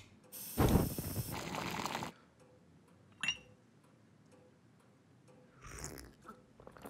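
A sharp click at the start, then a loud rushing noise for about a second and a half. A porcelain coffee cup clinks once, briefly ringing, and a soft sip from the cup is heard near the end.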